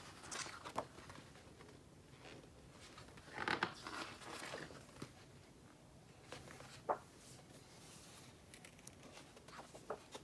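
Paper pages of a thick glossy photo magazine being turned by hand, giving a few soft rustling swishes, the loudest a little over three seconds in, and a single sharp tap of paper about seven seconds in.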